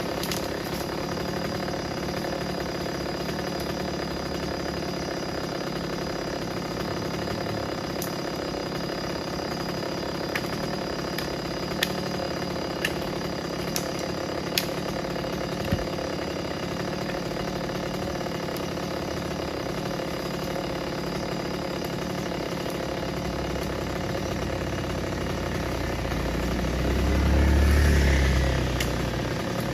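An engine idling steadily, with a few sharp clicks around the middle and a louder low swell that builds and fades near the end.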